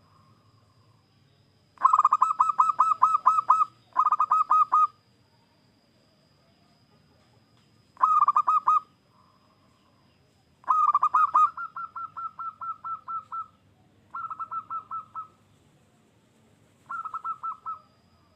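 Zebra dove cooing in six bursts of rapid staccato notes, each burst one to three seconds long. The longest burst comes a little past the middle and trails off quieter.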